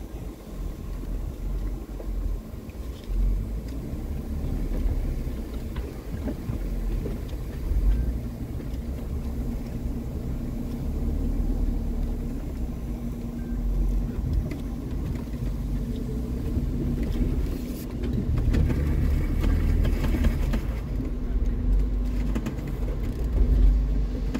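Jeep Wrangler's engine running steadily at low speed over rough off-road ground, heard from inside the cab, with a few louder thumps and knocks, one about eight seconds in and another near the end.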